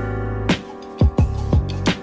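Background music with a steady beat: held bass notes and regular drum hits.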